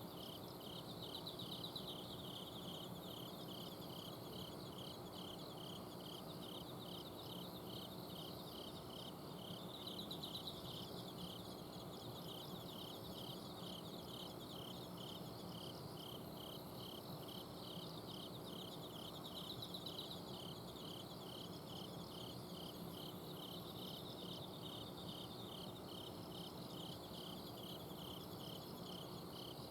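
Autumn insects chirping at night: a cricket repeating short even chirps about twice a second, and a higher trill that swells up about every nine seconds. Under them runs a steady low hum from an air-conditioner's outdoor unit.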